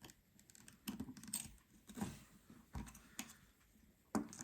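Light, irregular clicks and taps of a small metal shield plate and tools against an opened iPhone 12's frame as the plate is hooked under an edge and pressed into place, about six in all.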